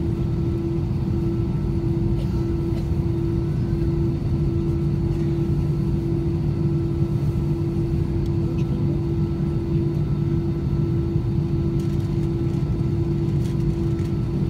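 Airbus A320-214's CFM56-5B engines at low taxi thrust, heard from inside the passenger cabin as a steady hum with a constant tone over it.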